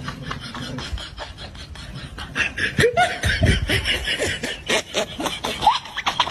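A person laughing in quick repeated pulses, louder from about halfway through.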